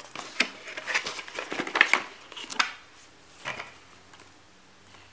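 Rustling, taps and light knocks of a small cardboard product box and its packaging being handled, busy for about three and a half seconds and then dying away.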